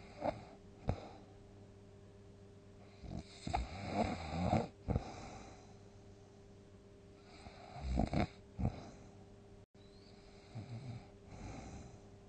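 A person snoring loudly in deep sleep. Two short snorts come in the first second, then two long snores a few seconds apart and a weaker one near the end, over a faint steady hum.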